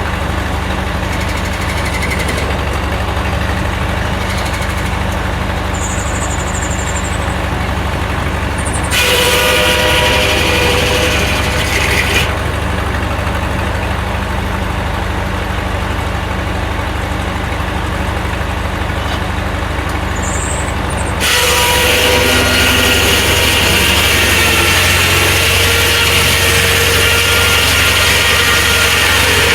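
Engine powering a Corley sawmill, running steadily. A louder rushing noise joins it for about three seconds near the middle, and again about two-thirds of the way through, where it stays.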